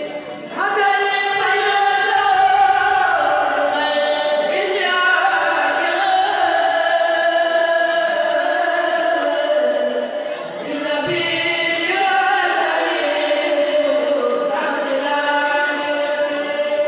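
A kourel, a group of young male chanters, chanting a religious poem together a capella into microphones, in long drawn-out held notes. The chant starts up about half a second in and pauses briefly around ten seconds in before going on.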